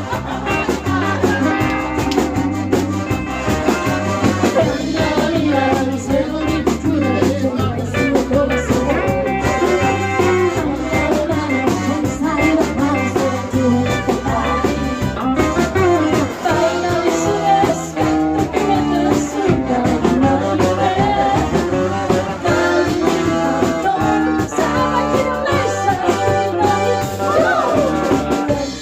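Live band music: an upbeat rock-and-roll style song with a steady beat and some singing.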